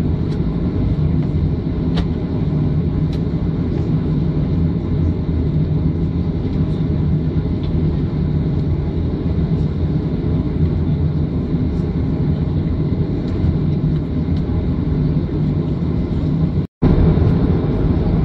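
Steady low rumble inside the cabin of a Boeing 737-500 on the ground, its CFM56 engines running at low power. The sound cuts out for a split second near the end.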